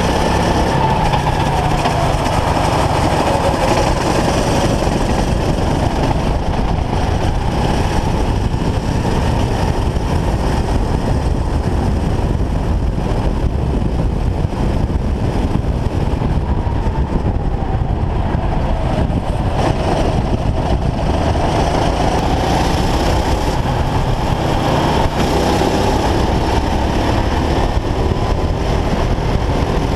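Racing kart engine running hard, its pitch falling and rising several times as the revs drop into corners and climb again on the straights, under heavy low rumble from wind buffeting the camera housing.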